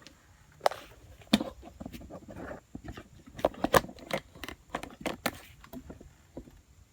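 Irregular metal clinks and knocks as parts are handled and set in place on a hydraulic shop press, with the loudest knocks about a second and a half in and again near four seconds.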